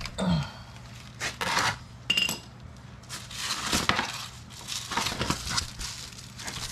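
Metal clinks of a socket ratchet being handled and set down on the floor, one of them ringing briefly about two seconds in. Then, from about three seconds, the crinkling of a plastic bubble mailer being handled.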